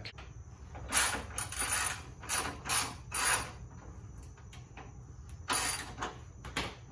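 Hand ratchet wrench clicking through short strokes on a front bar bolt, a run of quick ratcheting bursts in the first half and two more near the end, as a stock bolt is backed out.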